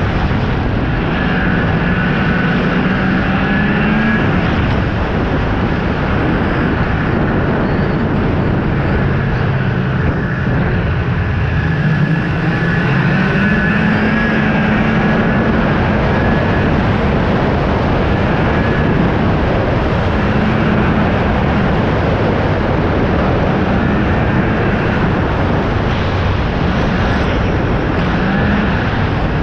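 Ski-Doo snowmobile engine running at trail speed, its pitch rising and falling as the throttle changes, with a steady rush of noise over it.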